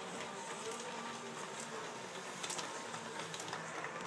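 LGB G-scale model train running along an overhead track: a steady mechanical running noise, with a few short clicks a little over halfway through.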